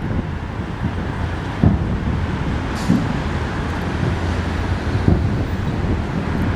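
Fireworks bursting, with a few separate booms; the sharpest comes about a second and a half in and others follow near three and five seconds. Under them runs a steady low rumble of wind noise on the microphone.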